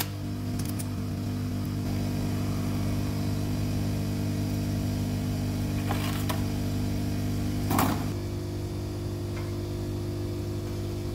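Metal clicks and a louder clank as honing stones and holders are handled and set into the honing head of a vertical honing machine, over a steady hum. The clank comes about eight seconds in.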